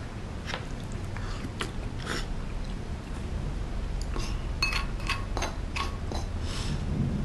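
Eating sounds: chewing, and a wooden spoon clicking and scraping against bowls as soup curry and rice are scooped. A quick run of short ringing clicks comes about four to six seconds in, as the spoon works in the rice bowl, over a steady low hum.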